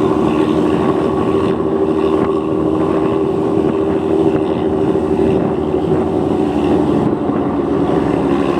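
Motorcycle engine running at a steady speed through an aftermarket Luragung 'ngorok' (snoring-style) exhaust. The pitch holds even throughout, with no revving.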